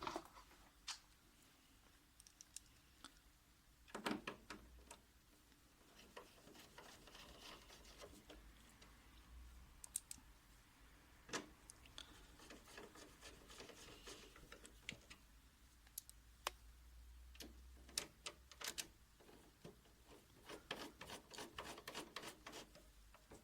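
Faint, scattered clicks and light rubbing of a hand screwdriver driving in the screws that hold a copier's fuser drive gear assembly, with a few short runs of quick ticking.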